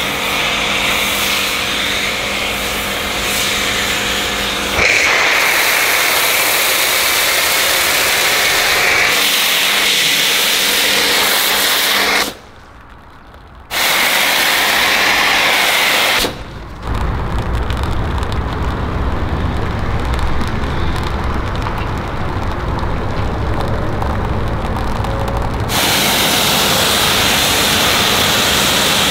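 Pressure washer spraying water onto the car, a loud steady hiss with a motor hum under it at first. The spray stops briefly about twelve seconds in and dips again a few seconds later, and a deeper rumble runs under the hiss for much of the second half.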